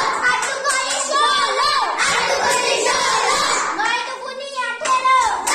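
A group of children singing loudly together in chorus, many voices at once, with a short dip in loudness past the middle.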